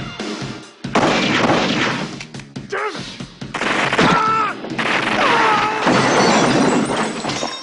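Action-film shootout sound: gunshots and glass smashing in loud bursts over background music, the first about a second in and more through the second half.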